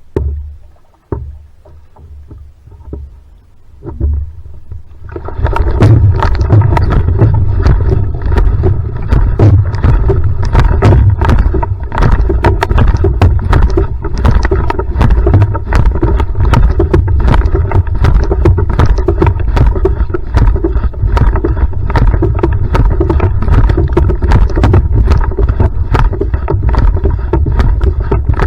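Va'a outrigger canoe paddled at full sprint: water rushing and splashing along the hull with rapid, irregular paddle-stroke splashes and knocks over a heavy low rumble. It starts loud about five seconds in, after a quieter opening with a few knocks.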